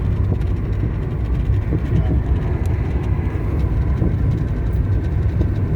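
Car driving along a road: a steady low rumble of tyres and engine.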